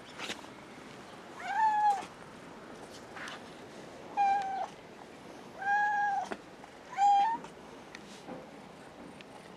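Domestic cat meowing four times, short pitched meows about a second apart from just over a second in to past seven seconds: the attention-seeking meows of a cat being affectionate.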